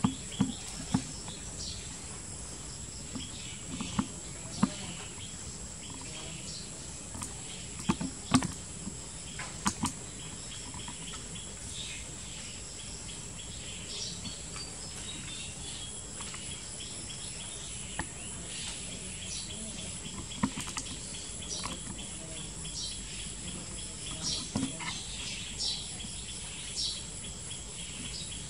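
Insects keeping up a steady high-pitched drone, with scattered sharp knocks, most of them in the first ten seconds, and a few short high chirps in the second half.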